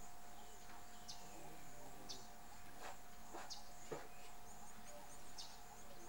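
Outdoor bush ambience: a steady high-pitched insect buzz, with about half a dozen short bird chirps and clicks scattered through it.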